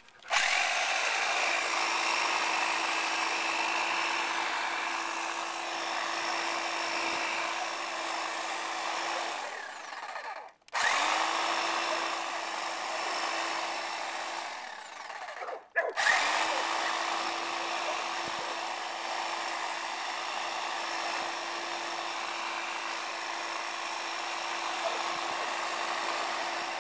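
Electric Hedge Hog hedge trimmer running in three runs as it cuts into thick weed stalks. It winds up to speed at each start, with a steady motor whine, and winds down briefly about ten seconds in and again about fifteen seconds in before running on.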